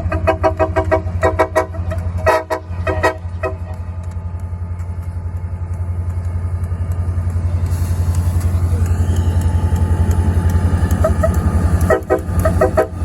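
Locomotive air horn sounding a quick run of short blasts, a salute, over the steady low rumble of a passing train. The horn stops for several seconds while the train keeps rumbling, then sounds again near the end.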